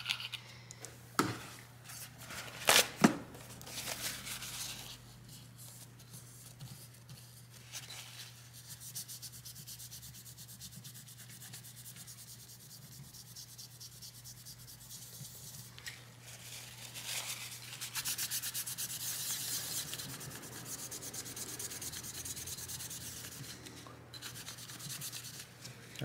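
Rapid rubbing strokes wiping dried old thermal paste off a graphics card cooler's copper cold plate, after a few sharp knocks in the first seconds. A steady low hum sits under it.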